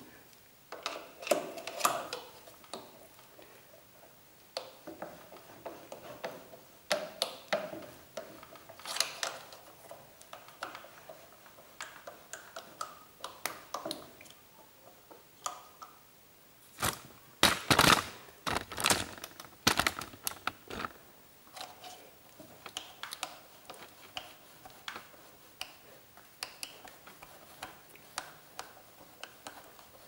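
Scattered sharp metallic clicks and clinks of a hex key being fitted into and turned in a motorcycle's front wheel axle, with a run of louder, quicker clicks a little past halfway.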